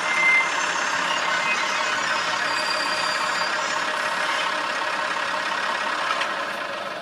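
Sound-equipped Piko HO-scale VT 98 railbus model running, its decoder's diesel railcar sound coming through a small onboard speaker as a steady rushing mechanical noise. A brief high tone sounds in the first half second, and the sound gets quieter near the end.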